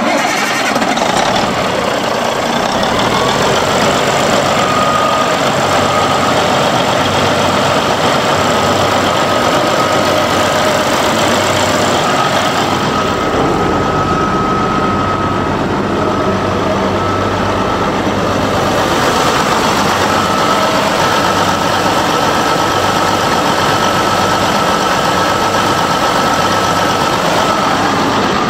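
Caterpillar 3406B inline-six turbo diesel in a 1987 Peterbilt 379 idling steadily, with a thin high whine over the engine note.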